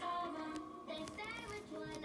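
Background music with a sung vocal melody.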